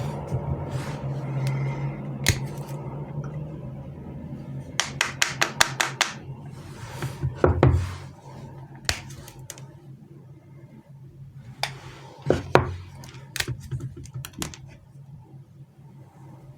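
Hands handling chocolates and sweets with their packaging, making scattered sharp clicks and taps as pieces are set onto a platter, with a quick run of clicks about five seconds in. A low steady hum sits underneath, fading after the first few seconds.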